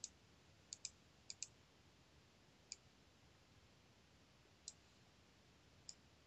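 Computer mouse clicking now and then: about eight short, sharp clicks, some in quick pairs, over near silence.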